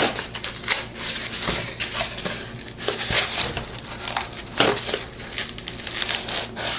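Very thick corrugated cardboard crunching and crackling in irregular snaps as it is cut with scissors and then pressed and bent by hand.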